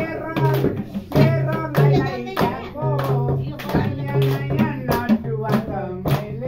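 Voices singing a Nepali folk song to a madal hand drum beating a steady rhythm.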